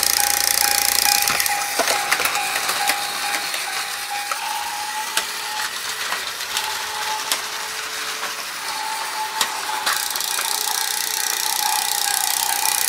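Plarail battery toy train running on plastic track: a steady, high motor whine with scattered sharp clicks and clacks of plastic parts.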